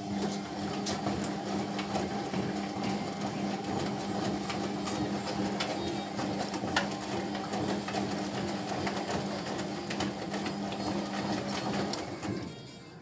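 Bosch Maxx 6 front-loading washing machine on a wash cycle: a steady motor hum as the drum turns, with water and laundry sloshing and light knocks inside. The sound drops away briefly near the end.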